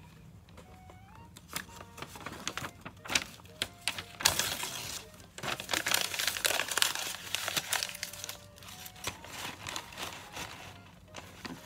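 Paper pages being crumpled into balls by hand, crackling and crinkling in irregular bursts that are densest from about four to seven seconds in.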